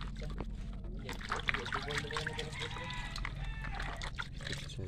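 Water sloshing and splashing in a plastic basin as hands rub and turn pieces of raw fish, washing them to get rid of the fishy smell. It comes as a run of short, irregular splashes.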